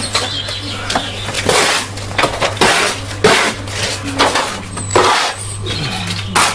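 Plastering trowel scraping and knocking as a lime render coat is spread onto a wall, in irregular strokes about once a second, over a steady low hum.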